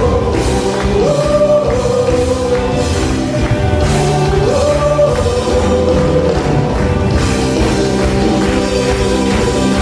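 Church choir singing an Indonesian praise song in unison, held sung notes over a full band with drums.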